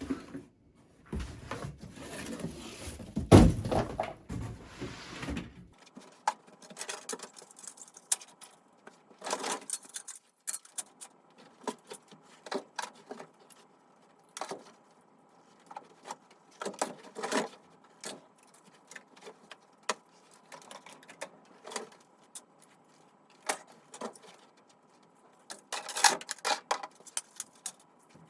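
Plastic fire alarm speaker strobes and their covers being unpacked, handled and set down: a dense stretch of rustling and rattling in the first few seconds, then scattered clicks and clacks throughout.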